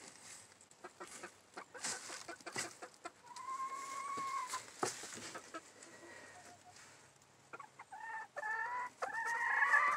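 A hen calling from the nest box: one long drawn-out call about three seconds in, then a run of short rising clucks near the end, growing louder. Scattered rustles and light knocks come from the wood shavings and the wooden nest box.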